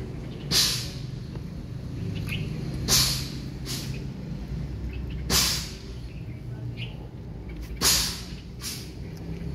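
Kitten guarding its food: a low, continuous growl broken by a sharp hiss about every two and a half seconds, four times, with fainter hisses in between.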